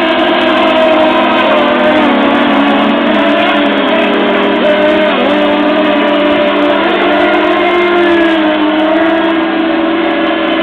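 Several 15 cc two-stroke engines of FSR-V radio-controlled racing boats running at full throttle together, an overlapping high whine whose pitches drift up and down slightly.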